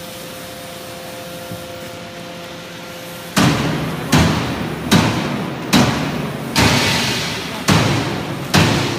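Rice husk baling machine at work: a steady motor hum with a constant tone, then from about three seconds in a regular run of heavy thuds, roughly one every 0.8 seconds, each trailing off in a short rush of noise.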